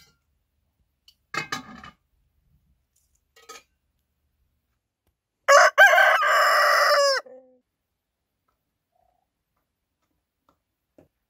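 Rooster crowing once about halfway through: a loud cock-a-doodle-doo of under two seconds, its last note falling away.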